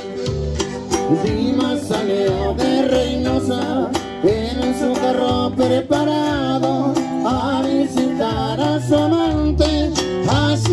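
Live norteño-style music from a duo, accordion and guitar with singing, played through PA speakers. It is a steady, continuous tune with a pulsing bass line.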